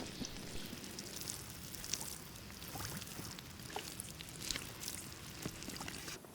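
Running water: a steady hiss with scattered small ticks and drips, cutting off suddenly near the end.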